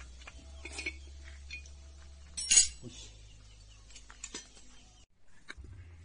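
Metal tools and drum-brake parts clinking as they are handled, with a few short clinks and one loud, sharp one about two and a half seconds in, over a low steady rumble that stops near the end.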